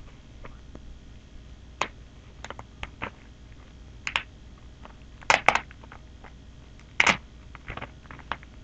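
Packaging being handled: irregular sharp clicks and short crinkling rustles, the loudest a quick pair about five and a half seconds in and another about seven seconds in.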